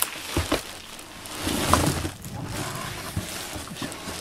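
Clear plastic wrapping crinkling and rustling as it is handled and pulled over a corrugated-cardboard cat scratcher, with a few short knocks near the start and a louder rustle about a second and a half in.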